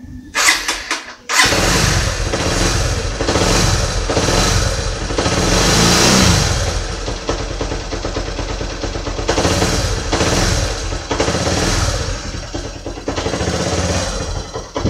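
Honda Mega Pro 160's single-cylinder four-stroke engine started: a few short strokes, then it catches about a second and a half in. It swells a few times under the throttle, then settles to a steady idle.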